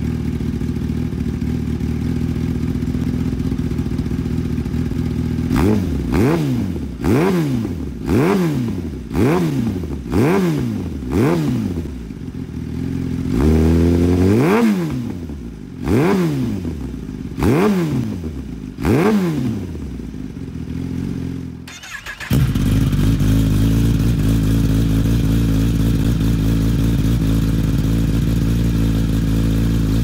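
Kawasaki Ninja ZX-10R's inline-four idling through an aftermarket exhaust, then revved in a run of six quick throttle blips about a second apart, one longer rev and three more blips. About two-thirds of the way in the sound cuts abruptly to a deeper steady idle from another exhaust.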